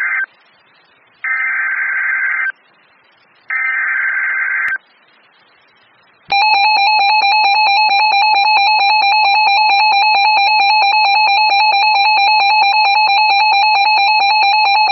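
Three Emergency Alert System SAME header data bursts, harsh buzzy digital screeches about a second long each, with a second's gap between them, announcing a new warning. After a short pause, the EAS two-tone attention signal starts about six seconds in as a steady, loud alarm tone.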